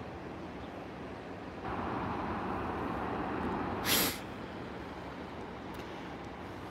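Steady road traffic noise from cars along a seafront road, with a brief loud hiss about four seconds in.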